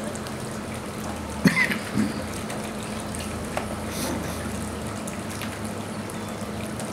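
Steady trickle of water, with a couple of sharp knocks about a second and a half and two seconds in as the plastic high-chair tray is handled, and a lighter click a little later.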